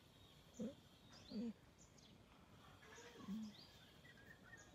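Near silence with faint, scattered bird chirps and three short, low vocal sounds, about half a second, a second and a quarter, and three and a quarter seconds in.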